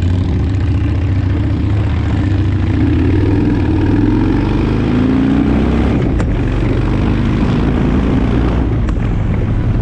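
Motorcycle engine running steadily while riding, its pitch rising and falling a little partway through, with two short clicks near the end.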